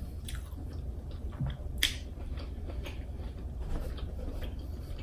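Close-miked chewing and wet mouth clicks of someone eating king crab meat, with a sharper click about two seconds in, over a low steady hum.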